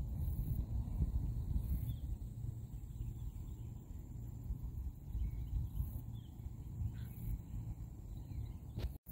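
Outdoor marsh ambience: a fluctuating low rumble of wind on the microphone, with faint, scattered bird chirps.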